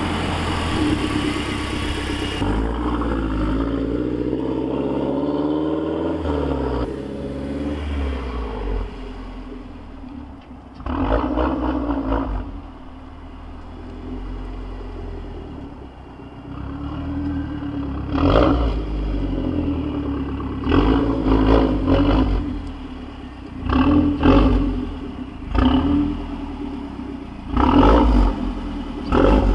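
Mazdaspeed 3's turbocharged 2.3-litre four-cylinder through a catted downpipe and non-resonated Magnaflow cat-back exhaust. The car drives past at the start, and then, standing still, it is revved in a series of short revs that come closer together in the second half.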